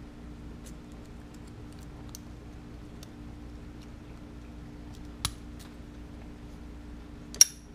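Lock pick and tension wrench working the pins of a padlock: faint scattered ticks, a sharper click about five seconds in, and a louder sharp metallic click near the end.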